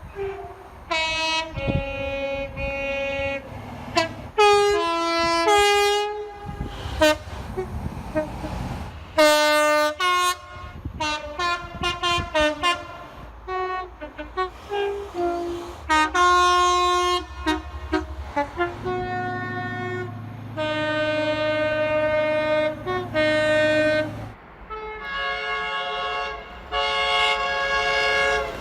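Locomotive air horns sounding several notes at once, in a quick succession of short toots and longer held blasts from one recording to the next. Around two-thirds of the way through, a long blast rises over the low rumble of the train.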